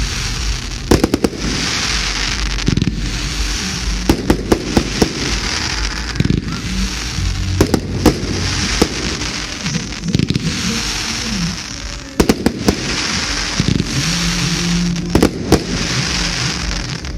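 Pyro Passion 'Ice House Street' fireworks compound battery firing: a rapid series of sharp bangs, with stretches of dense hiss a second or two long between them.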